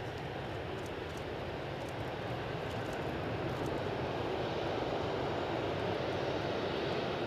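Boeing 787-8 jet airliner's engines, a steady rumble that grows louder about halfway through as the aircraft comes closer.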